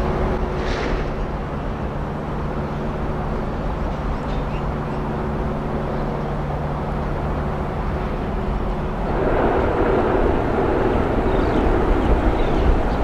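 Electric trains running across a steel truss railway bridge, heard from a distance as a steady low hum. About nine seconds in, a louder rumble sets in as a train runs onto the bridge.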